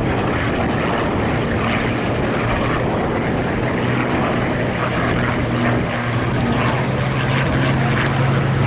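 Spitfire and Mustang piston fighter engines droning during a formation display pass: a steady low drone that grows louder in the second half.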